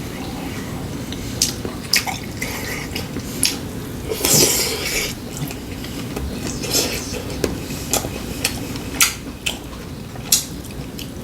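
Cutlery clinking and tapping against dishes and bowls during a meal: scattered sharp clicks, with one longer, louder stretch a little past four seconds in.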